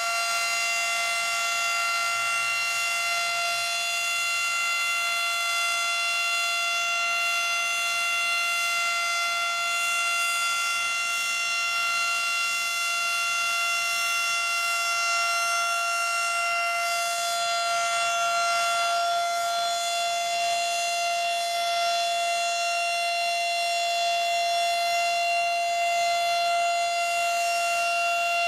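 Federal Model 5 single-tone mechanical warning siren sounding a steady, unbroken tone at a constant pitch, the siren's monthly test signal.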